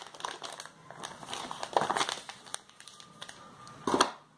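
Paper user manual rustling and crinkling as it is folded and handled, with a couple of louder rustles about two seconds in and near the end.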